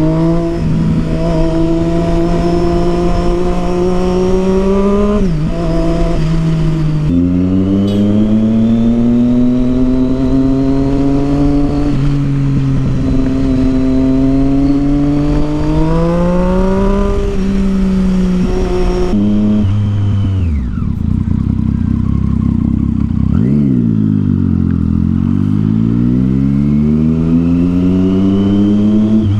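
Triumph Street Triple 675's three-cylinder engine through a Yoshimura exhaust, accelerating through the gears. The note climbs and drops sharply at each upshift, falls away as the throttle is eased about two-thirds of the way through, then climbs again to another shift near the end.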